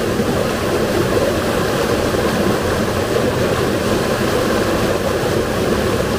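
Fast-flowing river water rushing steadily and loudly, an even roar with no pitched tones, cutting off suddenly at the end.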